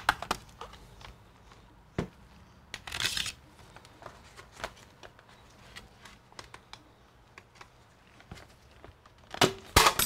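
Sharp clicks and knocks of small tools and laptop parts being handled during disassembly: a loud click at the start, another about two seconds in, a brief rustling scrape about three seconds in, light ticks in between, and two loud clicks close together near the end.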